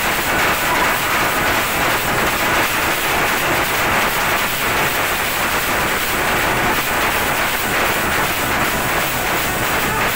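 Band playing loudly: several large double-headed drums beaten fast with sticks, with a saxophone playing over them.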